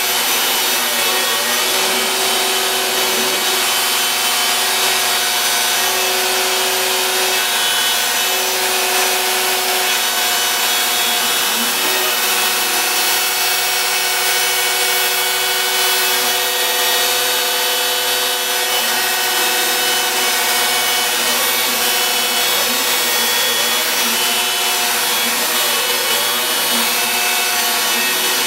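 Home-built CNC router cutting MDF: the router motor runs steadily at high speed, biting into the board, while the stepper motors driving the axes whine, rising and falling in pitch again and again as the machine speeds up and slows down along the toolpath.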